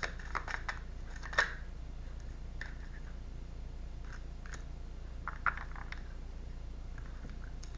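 Tarot cards being handled on a table: scattered soft clicks and taps, several in the first second and a half, then a few sparse ones, over a low steady hum.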